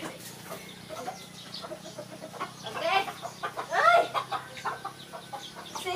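White Leghorn chickens clucking, with two louder calls about three and four seconds in.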